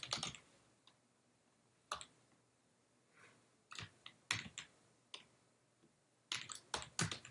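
Faint computer keyboard keystrokes as a short name is typed: single presses spaced out at first, then a quicker run of several keys near the end.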